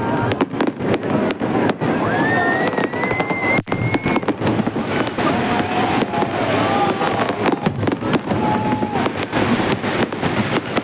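Fireworks display going off: many bangs and crackles in quick succession, without a break.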